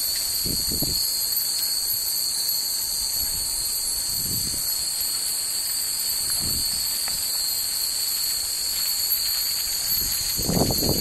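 Steady high-pitched drone of summer cicadas, with a few faint tinkles from bell-shaped wind chimes (fūrin) and four soft low wind rumbles, the last near the end the strongest.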